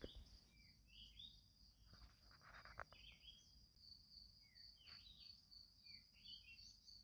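Very faint background: an insect, likely a cricket, trilling steadily, with small birds chirping several times. A soft brief rustle comes a little past the middle.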